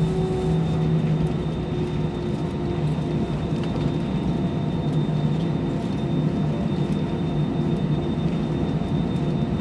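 Airliner cabin noise during the landing rollout: a steady rumble of engines and wheels on the runway, with a low hum that sinks slightly in pitch in the first few seconds.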